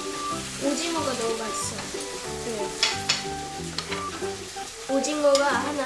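Food sizzling as it fries in a pan, under background music of steady stepping notes. A child's voice speaks briefly near the end, and a few sharp clicks sound in the middle.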